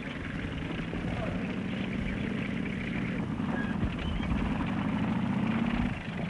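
Tank engines running steadily in a convoy, with an engine note rising slightly over the last couple of seconds before dropping away near the end.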